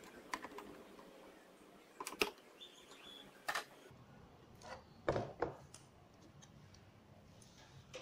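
Sharp clicks of a screwdriver working the screws in the back of a Bose 301 Series V speaker cabinet, then a few louder knocks and thumps about five seconds in as the cabinet is handled and turned around on the table.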